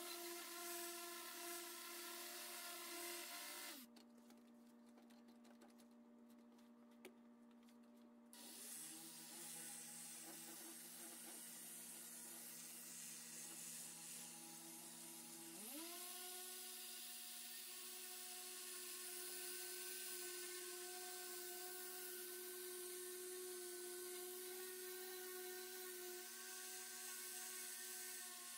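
Electric orbital polisher with a foam pad buffing a painted metal cowl panel, its motor whining steadily. About four seconds in it drops to a lower, quieter hum. About sixteen seconds in it quickly speeds back up to the higher whine.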